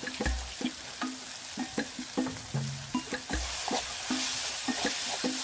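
A metal spoon scraping and clicking against a metal wok as a chilli and shallot spice paste is stir-fried over a wood fire. The paste sizzles in the hot oil, and the sizzle grows louder about three seconds in.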